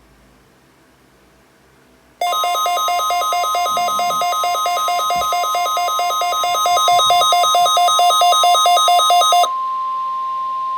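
NOAA Weather Radio's warning alarm: a loud, steady single high tone sounding from the weather radio's speaker, with a fast-pulsing beep over it that starts at the same moment about two seconds in. The pulsing stops a couple of seconds before the steady tone, which carries on alone to the end.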